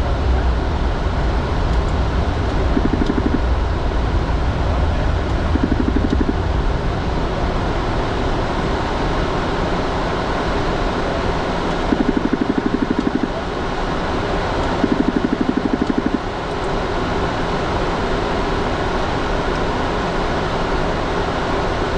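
Steady cockpit noise of a business jet in the climb, air and engine noise running at an even level. Four short spells of rapid, even clicking come and go along with it.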